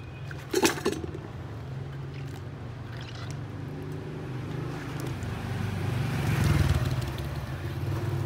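A motor vehicle engine runs steadily, swelling louder and fading again around six to seven seconds in. A single sharp knock comes about half a second in.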